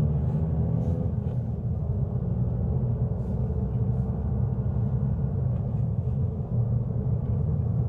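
A car driving on a city street: a steady low rumble of engine and road noise, with a fainter higher hum that fades out about a second in.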